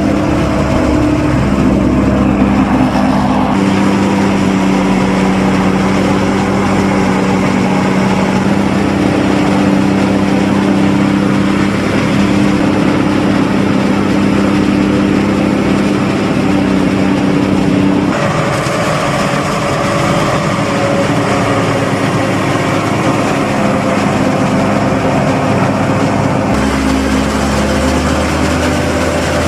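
Diesel engines of farm tractors hauling silage trailers and a John Deere 7500 self-propelled forage harvester, running steadily. The engine note changes abruptly about a second in, about 18 seconds in and near the end.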